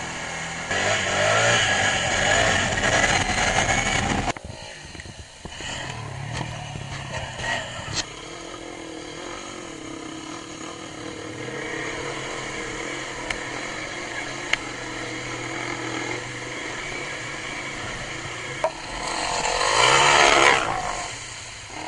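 ATV engines running as quads ride through a shallow river. The sound drops abruptly about four seconds in, and gets louder near the end as a rider churns through the water close by.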